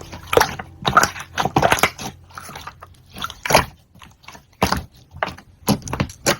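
Slime being squeezed and pressed by hand, giving irregular sticky pops and crackles.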